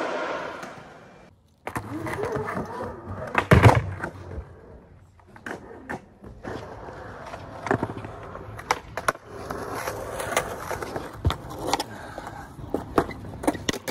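Skateboard wheels rolling on concrete, with sharp clacks and knocks of the board striking the ground during tricks. The loudest knock comes about three and a half seconds in, and a run of quicker clacks follows later.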